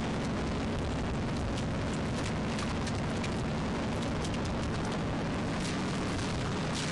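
Fishing trawler's engine running steadily as a low rumble under a rushing noise, with faint scattered clicks.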